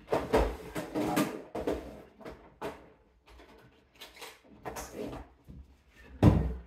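Rummaging: small tools and objects clattering and knocking as they are handled and moved about, with a sharp knock near the end.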